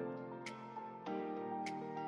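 Background music: a melody of held notes over chords, with a sharp percussive hit about every 1.2 seconds.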